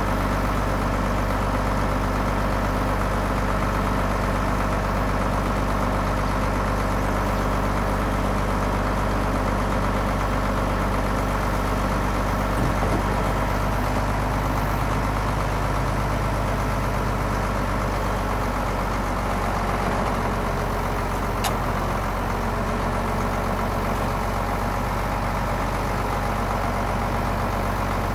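International Harvester 1066 tractor's six-cylinder turbo-diesel running steadily, driving a Hesston 560 round baler.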